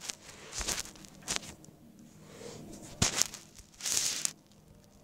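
Plastic drink bottle handled close to the microphone: crinkling plastic, a few sharp knocks and rasping bursts as its cap is worked at.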